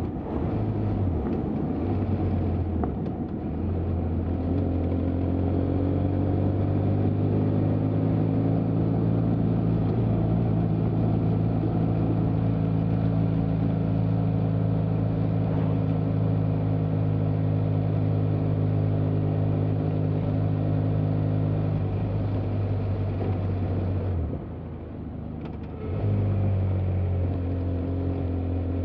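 BMW F800GT's 798 cc parallel-twin engine running steadily under way, with two brief dips and shifts in pitch in the first few seconds. Near the end it drops off and quietens for about two seconds as the throttle closes, then pulls again.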